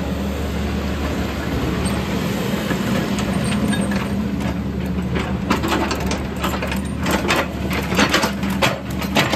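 Sany SY95C excavator's diesel engine running steadily while the boom and arm are worked. From about halfway there is a run of sharp metallic clanks, loudest near the end.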